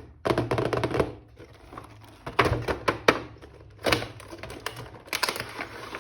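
Rapid clicking and rattling of hard plastic being handled, in four short bursts with quieter gaps between.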